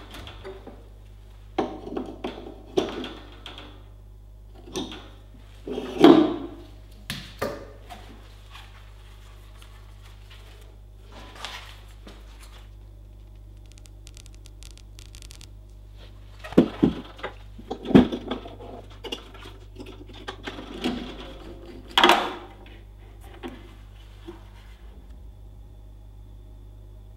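Irregular knocks and clatter of hard objects being handled and set down, the loudest about 6, 18 and 22 seconds in, over a steady low hum.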